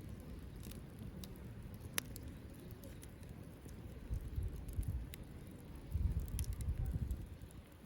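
Wood fire crackling in a compact folding fire pit, with scattered sharp pops. Two swells of low rumble come about four and six seconds in.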